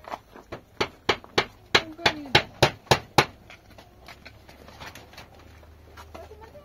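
A run of about ten sharp hammer blows, roughly three a second, stopping about three seconds in, followed by a few lighter knocks.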